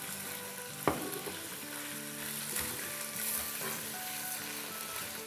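Small pieces of raw chicken breast sizzling in hot oil with crushed ginger and herbs as they are stirred and sautéed with a spatula, with one sharp knock about a second in. Soft background music runs underneath.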